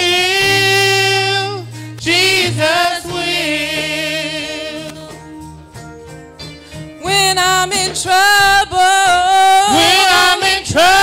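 Live gospel song: a woman sings long, wavering held notes over bass guitar and keyboard. It drops softer for a few seconds in the middle, then swells back loud.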